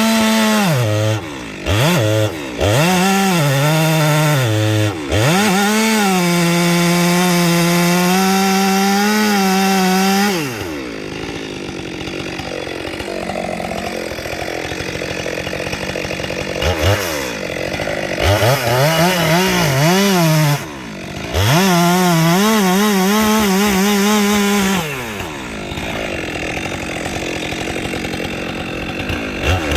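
Stihl MS 462 two-stroke chainsaw running at high revs while cutting wood, its pitch dipping and recovering several times. About ten seconds in it drops to a quieter, lower running for several seconds, climbs back to full revs, then falls back again near the end.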